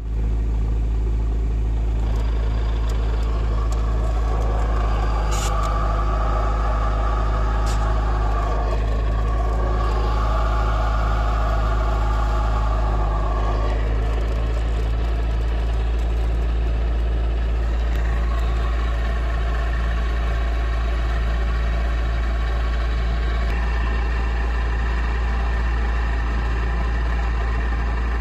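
Lada Samara (VAZ-2108 family) engine idling steadily, with a whine from the clutch release bearing that comes and goes over the idle, typical of a worn release bearing.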